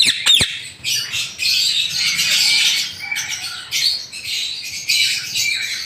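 Many caged parrots squawking at once in a steady chorus of overlapping calls, with a couple of sharp falling screeches right at the start.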